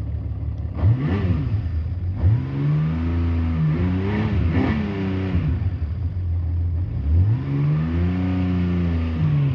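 1979 Honda CBX 1000Z's air-cooled inline six-cylinder engine idling and being revved three times, each rev rising and falling in pitch; the middle rev is the longest, with two peaks.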